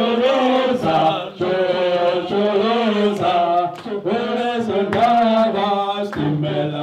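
A group of people chanting a song together in unison, holding long notes that step up and down in pitch.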